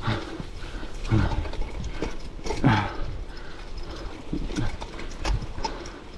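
Mountain bike rattling and rumbling over a rough trail, with the rider's hard breathing coming out as short, deep exhales about every second or two.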